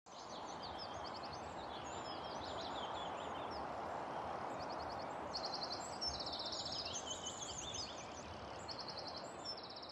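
Outdoor nature ambience: several birds chirping and singing short trills over a steady rushing hiss.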